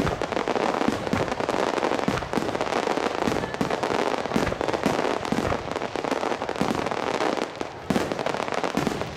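Starmine fireworks display: many shells fired and bursting in rapid succession, a continuous barrage of sharp bangs and pops.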